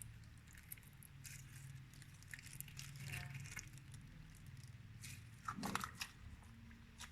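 Slime being handled by hand, making faint scattered crackly clicks and squishes.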